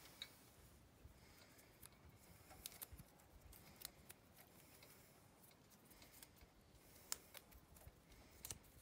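Faint, scattered small clicks and rustling as hands unwind twist ties holding a cable to an electric scooter's handlebar stem, with the cable wires brushing; the sharpest click comes about seven seconds in.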